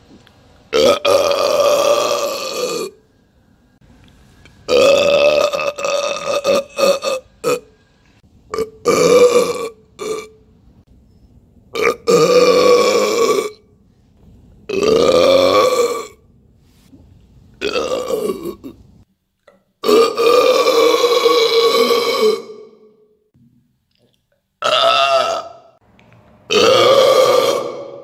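A man's loud, drawn-out burps, about nine of them one after another, each lasting one to three seconds and held on a fairly even pitch.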